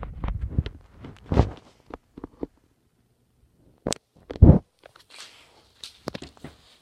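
Irregular thumps and scuffling of a cat struggling to get her collar off, with one louder thud about four and a half seconds in.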